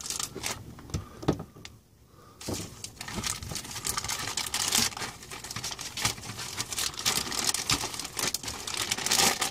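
Plastic parts bag crinkling and rustling, with sharp clicks of plastic kit parts being handled; a brief lull about two seconds in.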